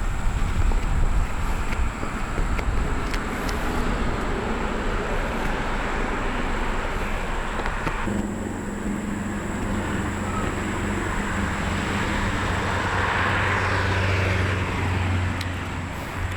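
Road traffic going by: a steady rush of vehicle noise, with a low engine hum joining about halfway and one vehicle swelling past near the end.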